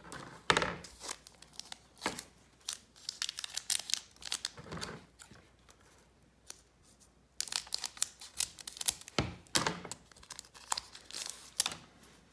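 A foil Pokémon booster-pack wrapper being torn open and crinkled in the hands: a series of short crackling rustles and tears, with a quieter stretch of about two seconds near the middle.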